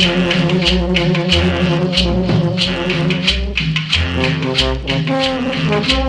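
Cumbia dance music played over a sonidero sound system: pulsing bass notes under held chords, with a shaker-like rattle on a steady beat of about three strokes a second.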